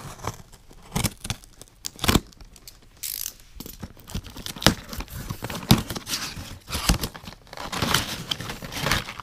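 A utility knife slitting the packing tape on a small cardboard box, then the cardboard flaps pulled open with irregular tearing, scraping and crinkling of the packaging.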